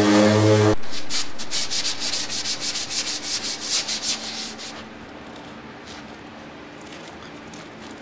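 A small electric motor hums briefly and stops under a second in, then a worn 220-grit sandpaper scuffs a painted panel in quick back-and-forth strokes, several a second, for about four seconds before the rubbing stops.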